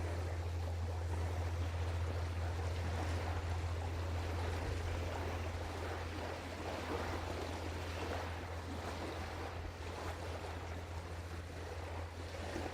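Steady wind and river-water noise on an outdoor microphone, over a constant low hum.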